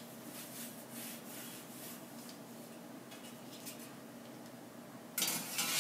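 Cloth wiping a perforated metal autoclave tray: faint, repeated rubbing strokes.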